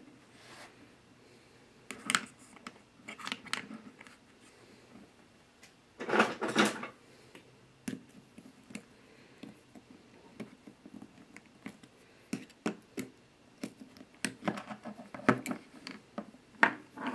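Irregular light clicks and knocks of small screws, a screwdriver and the plastic axle housing of an RC rock crawler being handled and screwed together, with busier bursts about six seconds in and again near the end.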